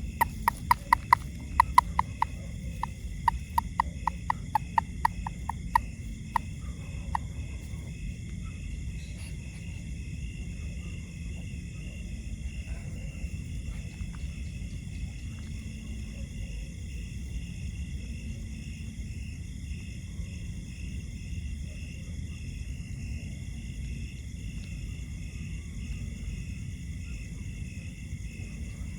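A frog giving a rapid series of short, sharp calls, about four a second, for the first six or seven seconds before falling silent. A steady pulsing insect trill continues underneath throughout.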